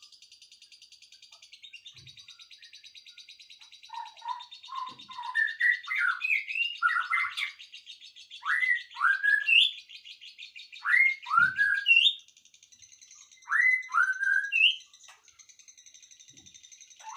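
Songbirds singing: loud, rising whistled notes, often in quick pairs, mixed with short higher chirps. These start about four seconds in, over a steady high-pitched pulsing buzz that runs underneath.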